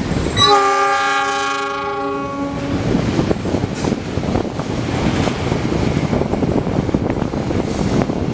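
Indonesian diesel locomotive sounding its horn once, a chord of several steady tones lasting about two and a half seconds, starting about half a second in. Then the steady rumble and wheel noise of the locomotive and its freight train of tank wagons rolling past.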